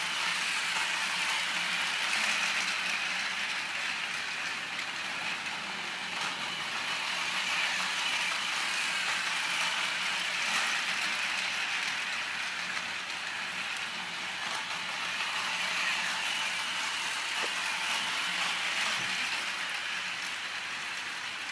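Battery-powered Plarail toy train (E6 Super Komachi coupled with a Hayabusa) running on plastic track: a steady whir of its small geared motor and wheels, growing louder and fainter by turns as it travels around the layout.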